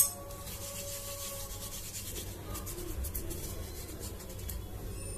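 Fingers rubbing ghee over the carved face of a wooden thekua mould: soft, repeated rubbing strokes, quicker and more distinct in the middle. A sharp click, the loudest sound, comes right at the start.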